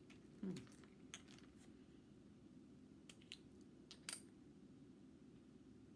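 Near silence with a few faint, sharp clicks and taps from handling small plastic eyeshadow pots, the loudest about four seconds in.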